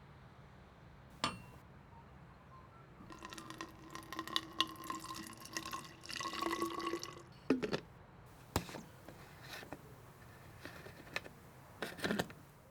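Water pouring or running for about four seconds, with a ringing, glassy tone over the splashing. Single sharp clicks and knocks come before and after it, about a second in and five more times near the end.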